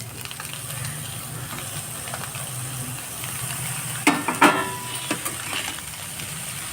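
Potatoes and onion sizzling as they fry in oil in a pan, stirred with a metal spatula; a quick cluster of clanks against the pan about four seconds in.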